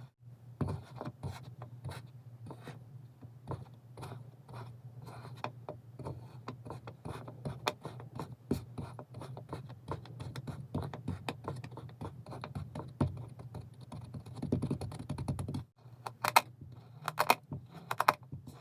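Kinetic sand being cut with a blade: a dense run of soft, crunchy scrapes and crackles as it slices through the packed sand. Near the end come several sharper, louder clicks.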